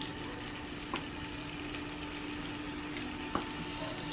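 Faint, steady kitchen background hiss with a low hum, and two light clicks, one about a second in and one near three and a half seconds in.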